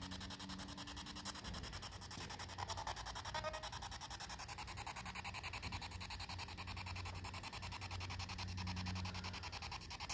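A handheld spirit box sweeping through radio stations: steady static chopped into a rapid, even stutter, with faint fragments of sound between the jumps.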